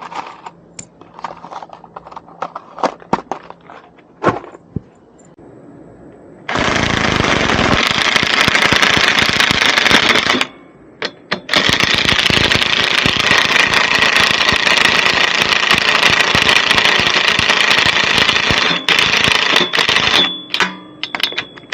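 Small clicks and clatter of hardware being handled, then a power driver hammering 5/16 hex-head screws in: a run of about four seconds, a second run of about seven seconds, then a few short bursts near the end as they seat.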